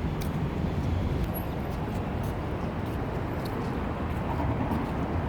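Street traffic ambience: a steady low rumble of passing road traffic.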